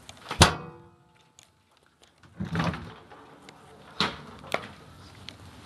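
A washer or dryer door is handled: a loud clunk with a short ringing tail about half a second in. Then come rustling handling noise and two sharp clicks near the end.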